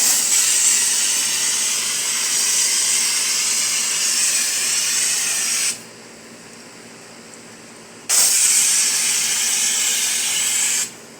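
Pressure washer spraying through an X-Jet softwash nozzle: a loud steady hiss of spray for about six seconds, a pause of about two seconds, then a second spray of about three seconds.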